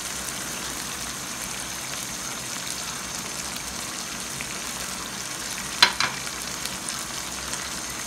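Mutton karahi sizzling steadily in hot oil in a karahi, with two sharp knocks close together about six seconds in.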